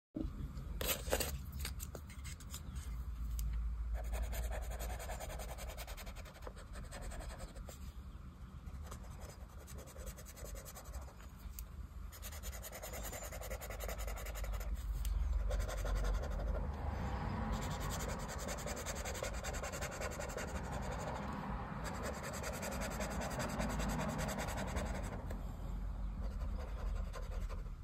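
Felt-tip pen scratching on notebook paper in short, repeated strokes as squares of a pattern are coloured in, with a couple of sharp clicks about a second in.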